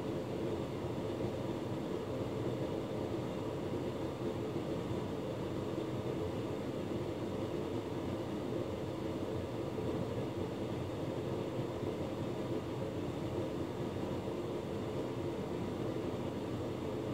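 Hotpoint Ultima S-Line tumble dryer running with a full load: a steady hum of the motor and fan as the drum turns.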